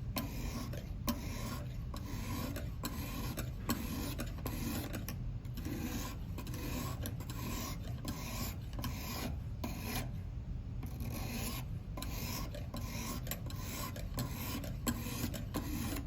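Lansky sharpening hone scraping across a clamped knife edge in a run of short, even back-and-forth strokes, each a dry rasp with a brief pause between.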